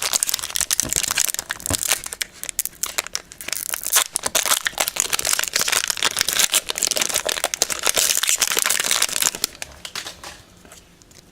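Foil trading-card booster pack wrapper being torn open and crinkled by hand, a dense crackle that dies down near the end.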